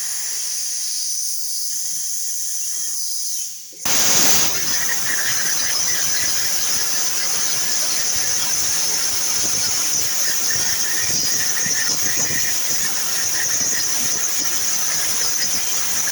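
CNC plasma cutter: a steady high hiss, then about four seconds in the plasma arc starts suddenly and runs on as a steady, loud, harsh hiss while it cuts.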